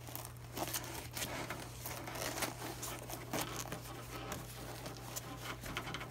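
Black nylon camera bag being handled as its padded Velcro-fastened dividers are pressed back into place: irregular fabric rustling, scratching and light Velcro rasps, over a steady low hum.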